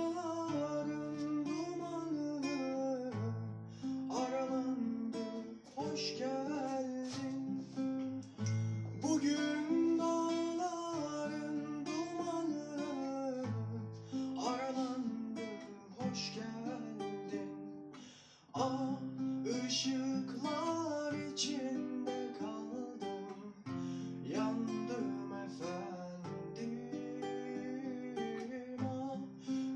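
Acoustic guitar strummed and picked in a continuous song, with a man singing along.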